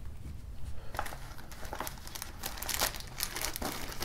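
Plastic packaging crinkling and rustling as it is handled and unwrapped, in irregular crackly bursts that grow busier in the second half.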